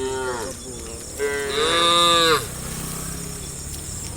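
Cows mooing: a short moo at the start, then a longer, louder moo lasting about a second.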